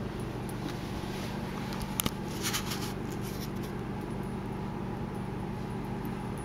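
Steady low hum of a kitchen's room tone, with one sharp click about two seconds in and a brief run of light scratchy sounds just after it.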